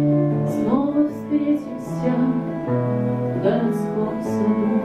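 A woman singing a slow, lyrical song in Russian to her own acoustic guitar. Her voice slides between notes over steadily held guitar chords.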